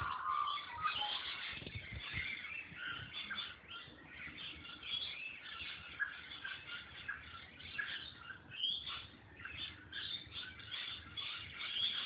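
Dense chorus of small birds chirping and calling, many short calls overlapping without a break.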